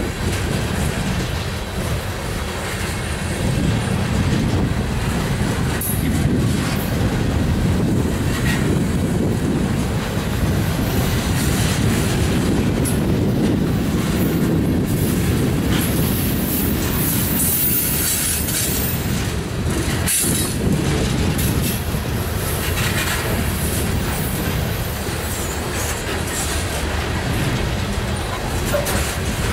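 Loaded coal hopper cars of a freight train rolling past close by: a steady rumble of steel wheels on the rails, with a thin, high wheel squeal about halfway through.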